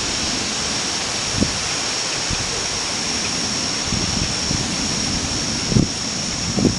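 Steady wind rushing through the night air, with a steady high-pitched whine above it. Two faint low thumps come through, about a second in and near the end.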